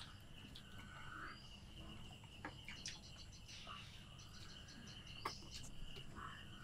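Quiet room with a faint, steady high-pitched insect trill running throughout, and a few soft clicks and taps of people eating by hand from steel plates.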